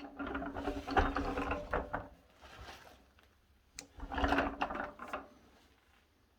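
Two bursts of rumbling, rattling noise from the finished wooden rolling table being moved or worked, about three seconds apart.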